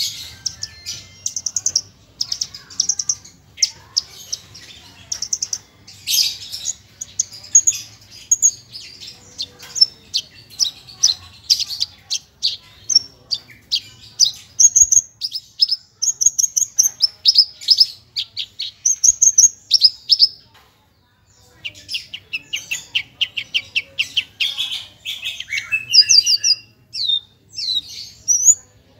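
Javan bush lark (branjangan, parva race) singing a long, rapid, high-pitched song full of fast repeated chirps, trills and short sweeping notes, with mimicked phrases worked in. The song breaks off for about a second roughly two-thirds of the way through, then goes on.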